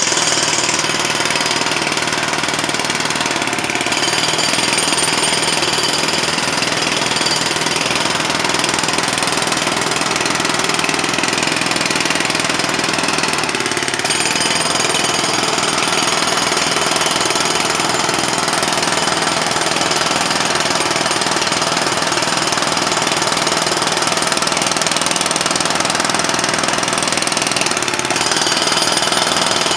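Jackhammer hammering continuously at a rapid, even rate, breaking up pavement for a fire hydrant installation.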